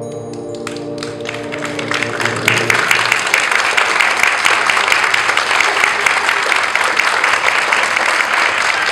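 Concert band's final held chord, which dies away over the first second or two as audience applause starts about a second in. The applause builds to a full, steady ovation and is the loudest sound.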